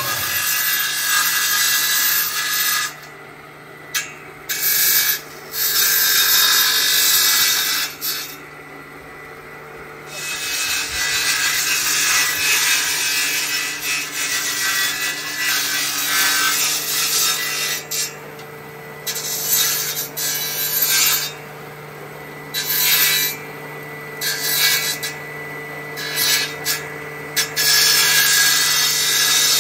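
Green Garnet Tools woodworking planer machine cutting bamboo: the motor runs steadily while loud rasping cutting noise comes and goes as bamboo is pushed across the blade, with several short lulls between passes where only the motor hum is left.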